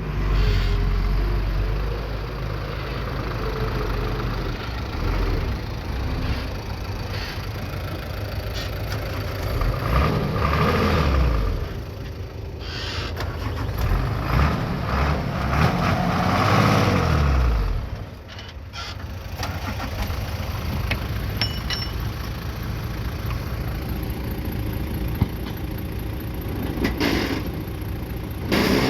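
Bulldozer's diesel engine running steadily, revving up and back down twice in the middle, with a brief sharp sound just before the end.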